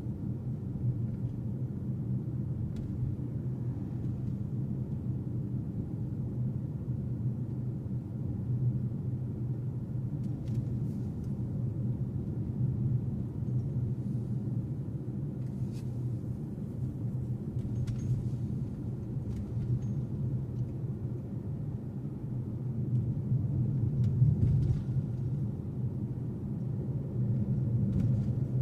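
Steady low rumble of a car's engine and tyres heard inside the cabin while driving, with a few faint clicks.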